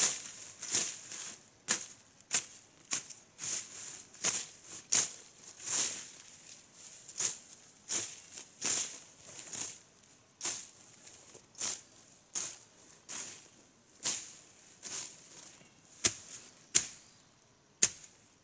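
Ferns and leafy undergrowth rustling and snapping in short, sharp strokes as they are cleared by hand, about one and a half a second, unevenly spaced, with a brief pause about halfway through.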